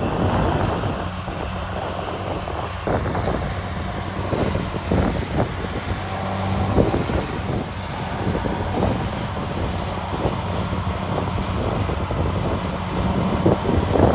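Caterpillar D6R bulldozer's diesel engine running steadily, with the steel tracks clanking and rattling irregularly throughout.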